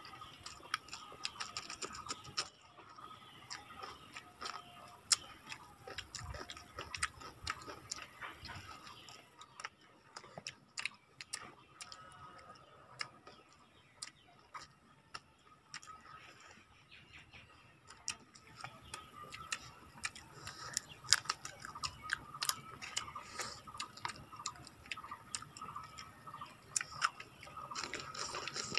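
Close-up eating sounds of people eating rice and fried chicken with their fingers: chewing and lip-smacking, heard as a stream of small irregular clicks, quieter for a few seconds near the middle.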